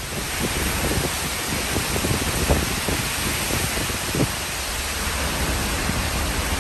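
Tropical storm wind and rain: a steady rushing hiss, with irregular low thumps of gusts buffeting the microphone.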